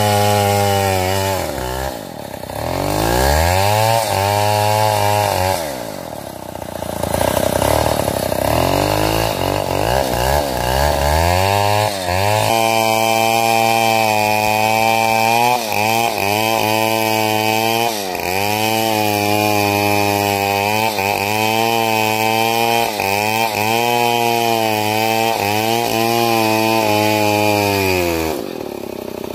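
Stihl MS070 two-stroke chainsaw, its engine pitch falling off and climbing back twice, then held high and steady as it cuts into a sengon trunk, with brief dips in pitch every second or two as the chain bites. Near the end it falls off once more and picks straight back up.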